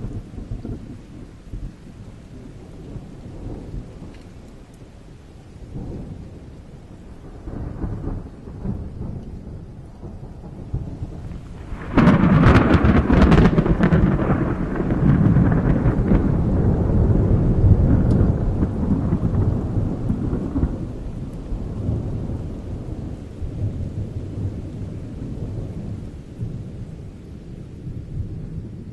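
Thunderstorm: low rumbles of thunder over steady rain. About twelve seconds in, a sudden sharp crack of close thunder rolls into a long, loud rumble that slowly fades.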